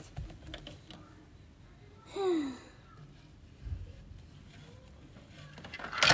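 Quiet handling of plastic dollhouse toys, with a short falling vocal sound, like a sigh, about two seconds in. Near the end a loud plastic clatter as the toy TV desk is knocked over.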